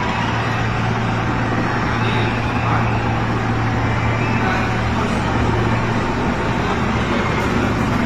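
Helicopter flying low overhead, its rotor and engines making a loud, steady drone with a constant low hum underneath.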